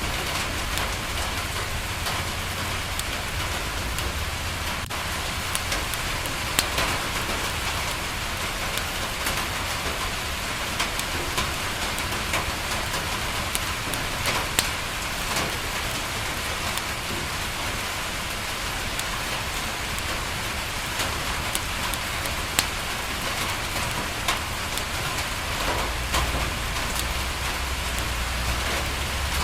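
Steady rain falling on window glass, an even hiss, with scattered sharp pops from a crackling wood fire. A low rumble swells near the end.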